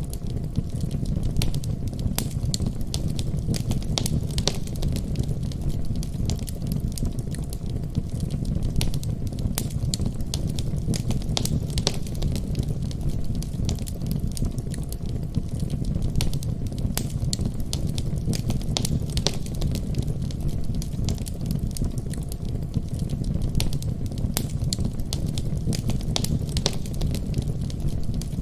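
Wood fire crackling in a fireplace, with frequent sharp pops and snaps over a steady low rumble.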